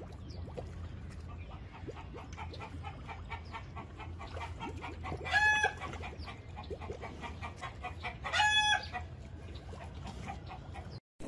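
Farmyard animal sounds: a run of soft, irregular clucking or clicking, with two short, steady, high calls about five and eight seconds in.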